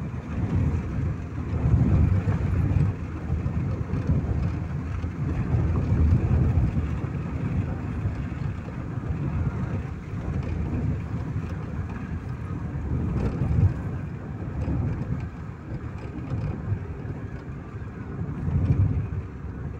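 Road and engine noise inside a moving car's cabin: a steady low rumble that swells and eases in loudness.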